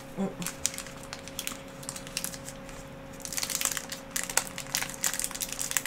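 Crackly crunching of a hazelnut chocolate candy being bitten and chewed, scattered crackles at first, then a dense run of them about three seconds in.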